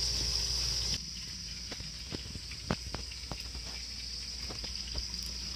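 Crickets trilling steadily and high, with scattered sharp crackles and pops from the wood fire under a pan of heating lard.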